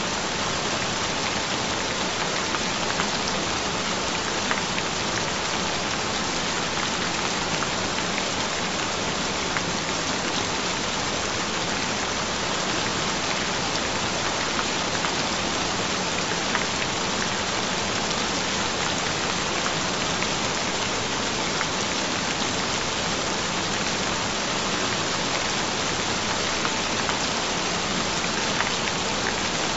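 Steady rain: an even hiss with scattered faint drop ticks.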